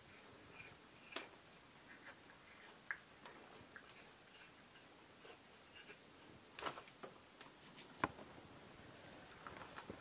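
A knife blade slicing thin shavings from wet wood, the cuts faint, with scattered small clicks and snaps of wood; the sharpest comes about eight seconds in.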